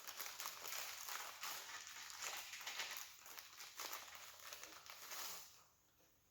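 Hands handling small hardware: rustling with many light clicks, stopping near the end.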